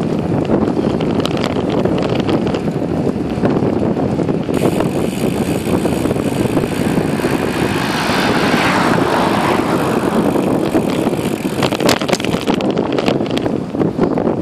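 Wind buffeting the microphone of a camera on a moving bicycle's handlebars, mixed with tyre noise on asphalt, a steady rushing. About eight seconds in, oncoming cars pass with a swelling swish that fades, and a few sharp clicks follow near the end.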